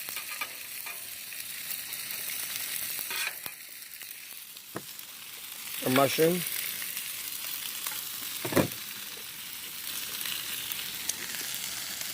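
Chicken wings and vegetables sizzling on a propane Blackstone flat-top griddle, a steady hiss, broken by a few sharp knocks and scrapes, the loudest about six and eight and a half seconds in.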